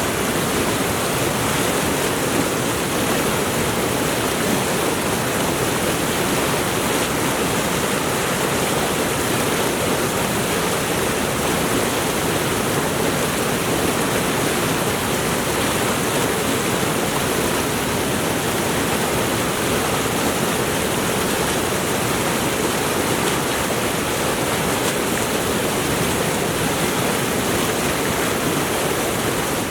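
Mountain stream rushing steadily over rocks, a constant full hiss of moving water.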